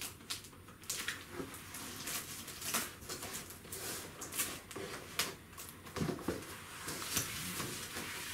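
Plastic packaging crinkling and rustling in short, irregular crackles as a laptop is unwrapped by hand.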